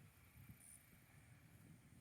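Near silence: faint outdoor ambience with a low, fluttering rumble and a faint steady high hiss.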